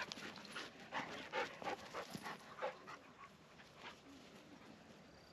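A dog panting in quick short breaths, about three a second, dying away about three seconds in.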